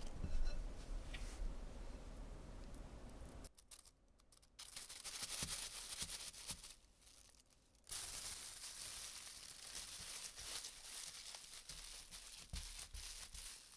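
Thin plastic bag crinkling and rustling as hands spread it and press a slab of dough flat inside it, in two stretches split by brief hushes. At the start, a silicone spatula squishes through thick dough in a glass bowl.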